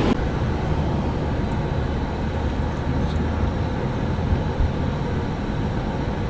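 Steady low rumble of road and traffic noise heard from inside a Toyota Aqua hybrid's cabin in slow city traffic, with a brief soft bump a little past four seconds in.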